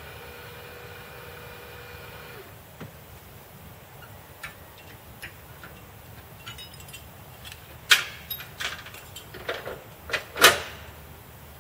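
A steady mechanical hum that stops about two and a half seconds in, followed by scattered clicks and knocks, with two sharp bangs in the second half.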